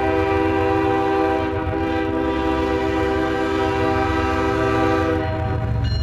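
Horn of an approaching BNSF diesel freight locomotive sounding one long, steady chord that cuts off about five seconds in, over the low rumble of the locomotive's engine, which comes up after the horn stops.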